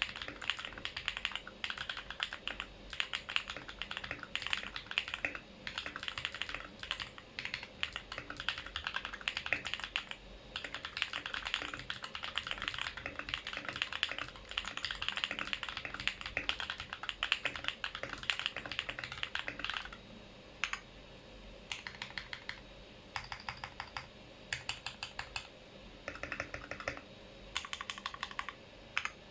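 Typing on a Mode 80 mechanical keyboard with Holy Panda tactile switches: fast, continuous keystrokes for about twenty seconds, then slower, separate runs of key presses, a few with a short ringing note.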